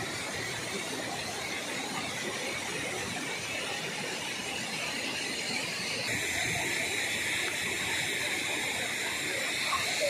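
Water rushing and splashing over shallow rock ledges of a river cascade. It is a steady rush that turns brighter and hissier about six seconds in.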